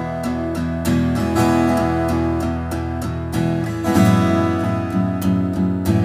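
Background music led by acoustic guitar, strummed in a steady rhythm, with a chord change about four seconds in.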